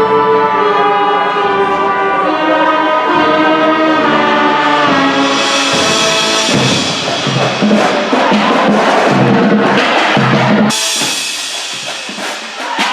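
Band music with brass and drums: held brass chords, then drums and percussion come in hard about five seconds in. The low end drops out suddenly near the end, leaving lighter percussion hits.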